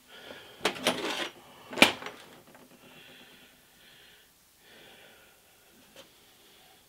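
Steel parts of a lathe collet closer knocking and clinking as they are handled and fitted on a workbench: a cluster of knocks about a second in and one sharp metal clink just under two seconds in, then only faint soft handling sounds and a small tick near the end.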